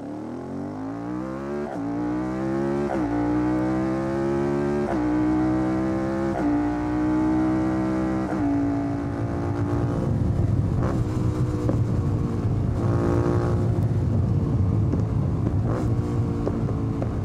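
Suzuki SV650 V-twin motorcycle engine accelerating through about five upshifts, the note climbing and then dropping at each shift, heard mainly through its intake from a microphone at the airbox. In the second half the sound shifts to the exhaust, a rougher, lower running note with a few short revs.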